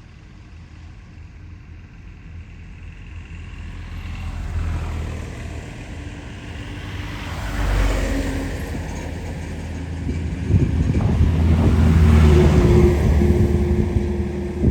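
Motor vehicle engine and road noise, swelling to a peak about eight seconds in and to a louder, longer one between about eleven and thirteen seconds.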